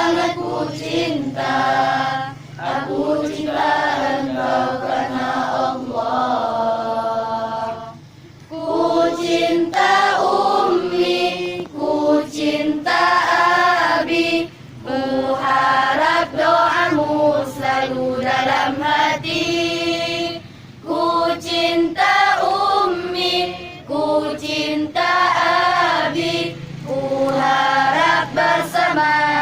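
A choir singing together in long sustained phrases, with brief breaks between lines.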